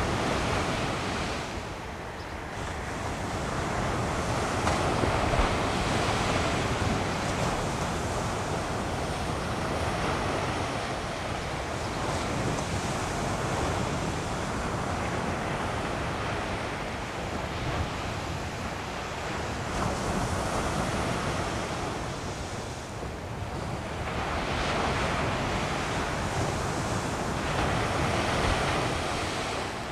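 Ocean surf breaking on a sandy beach: a continuous wash of waves that swells and eases every several seconds as each set comes in and runs up the sand.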